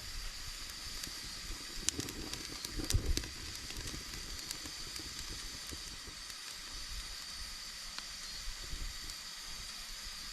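Campfire burning with a steady hiss and scattered sharp crackles and pops.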